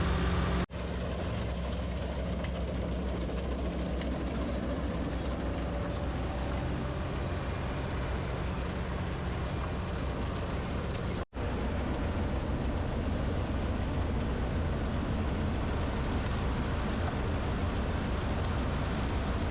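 PREET 4949 Maestro combine harvester with its 102 hp engine running steadily: a continuous low engine drone under a broad mechanical noise. The sound drops out abruptly for an instant twice, about a second in and again about eleven seconds in.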